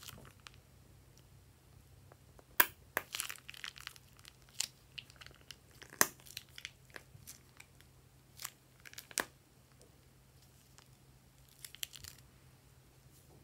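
Plastic piping bag crinkling and crackling in the hand as it is squeezed and its tip scraped through slime in a glass bowl: irregular sharp clicks and crinkles starting a few seconds in, then a short cluster near the end.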